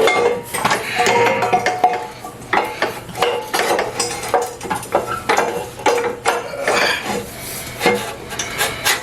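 Metal exhaust pipe clanking and scraping against a mini bike's steel frame as it is worked into place: an irregular run of knocks and clinks, some briefly ringing, with rubbing scrapes in between.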